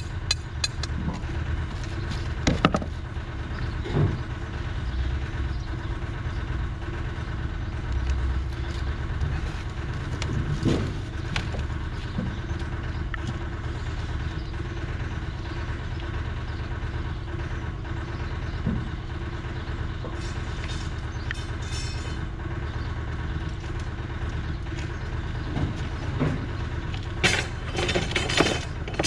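Steady low engine hum with a few scattered knocks; near the end, a metallic clatter as a bundle of steel reinforcing bars is picked up.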